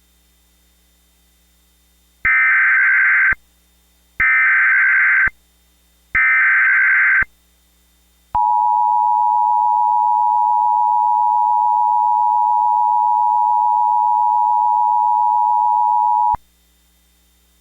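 Emergency Alert System SAME header: three loud, identical one-second bursts of warbling digital data about two seconds apart. These are followed by the EAS two-tone attention signal, held steady for about eight seconds before it cuts off.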